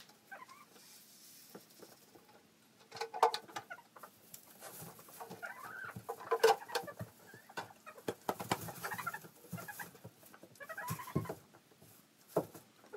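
Backyard hens clucking in short bursts every second or two, with a few sharp knocks among the calls.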